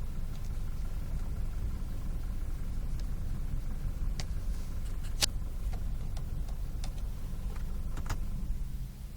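BMW F30 steering knocking: a series of irregular sharp knocks over the steady low hum of the idling engine, the loudest about halfway through. The owner suspects the steering shaft's universal joint rather than the steering rack.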